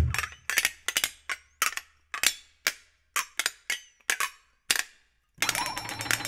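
Two flexatones struck in sharp, irregular accented strokes, about two to three a second, each ringing briefly with a bending high pitch. About five seconds in, after a short gap, they break into a loud, dense, sustained shaken tremolo.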